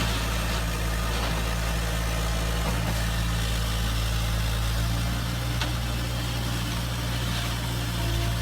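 Steady engine idling sound: an even low drone with no revving, and a couple of faint ticks over it.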